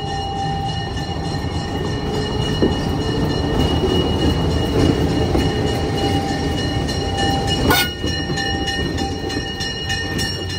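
ALCO RS-11 diesel locomotive, its turbocharged 12-cylinder ALCO 251 engine running as it rolls past at close range hauling passenger cars, with wheels on the rails. The sound swells to its loudest midway, and there is one sharp knock about three-quarters of the way through.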